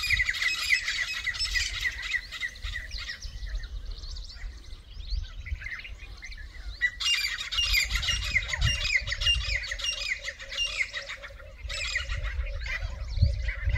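Several grey francolins calling over one another in rapid, repeated, squawking bursts, taken for territorial calling between rival coveys. The calls ease off for a few seconds and then come back loud. A lower, steadily pulsing call joins about eight seconds in.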